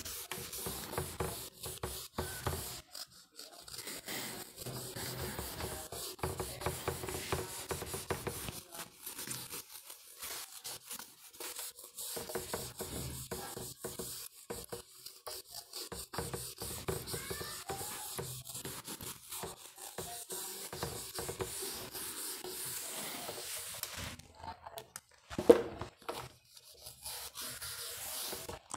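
A handheld whiteboard eraser being rubbed back and forth across a whiteboard in repeated wiping strokes, clearing off marker writing. Near the end there is one brief, louder sound.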